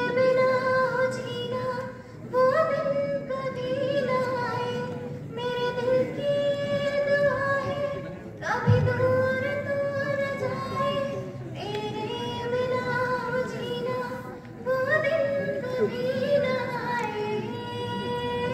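A girl singing solo into a microphone, holding long drawn-out notes with short breaks for breath.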